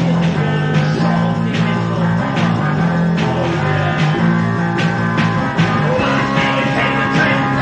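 Rock band playing live: guitar and band over a steady drum beat.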